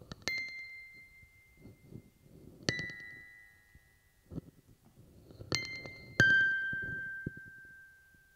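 Four bell-like chime tones, each struck and left ringing to fade over a second or two. The fourth, about six seconds in, is lower in pitch and the loudest.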